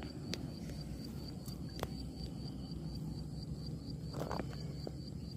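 Outdoor pondside ambience: a steady low background hiss with an insect chirping in an even, fast rhythm, a few faint clicks, and a short rustle about four seconds in.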